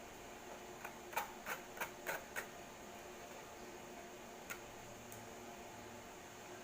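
A quick run of about six light clicks and taps of kitchen utensils, then a single one a few seconds later, over a faint steady hum. These are the sounds of straining blended lime and ginger through a sieve.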